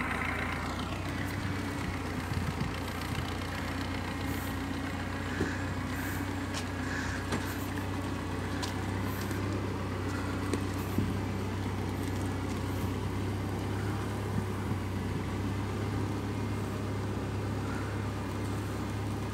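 Fiat 750 four-wheel-drive tractor's diesel engine running steadily under heavy load, hauling a trailer of about 7 tonnes of cassava slowly up a steeply tilted dirt track.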